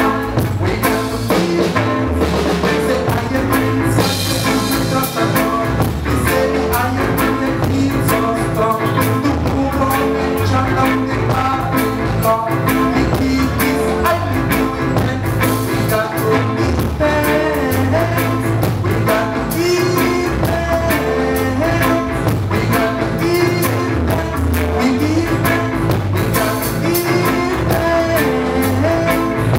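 Live band playing with a steady beat: drum kit, bass guitar, electric guitar and keyboard.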